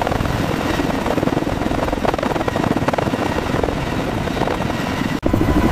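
Large helicopter hovering: fast, steady rotor chop over turbine engine noise. The sound cuts out for an instant about five seconds in, then carries on.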